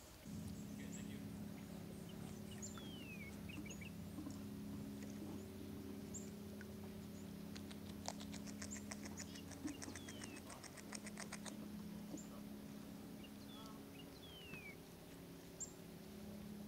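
A beaver chewing on a stick, with small crunches, over a steady low hum. Birds call in the background with several high whistles that fall in pitch, and a fast, even trill of about ten notes a second runs for a few seconds near the middle.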